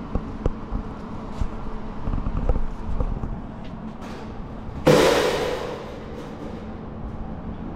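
A sudden loud hiss of compressed air about five seconds in, fading away over a second or so. A few light clicks come near the start.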